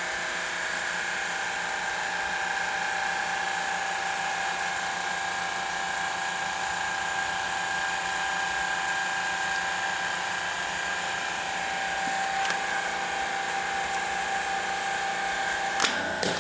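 Electric hydraulic pump of a guillotine cable cutter running under steady load with an even whine, driving the blade through a 5-inch XLPE power cable with a solid copper core. A few sharp clicks come near the end as the cut finishes.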